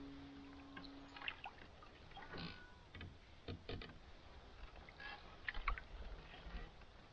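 Faint canoe-paddling sounds: scattered small splashes and drips from the paddle, with a few light clicks and knocks at irregular intervals.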